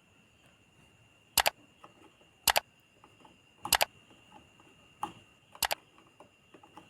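Sharp, short clicks of small hard objects knocking together, about five times, several as quick double clicks, during bench work on an amplifier board.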